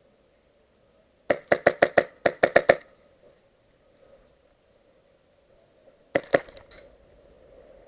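Airsoft gun firing: two quick strings of shots about a second in, then a short burst of three or four shots near the end.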